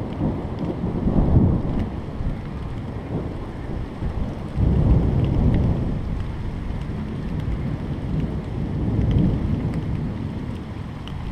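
Thunder rumbling in rolling swells after a nearby lightning flash, loudest about a second in and again about five seconds in, over steady rain.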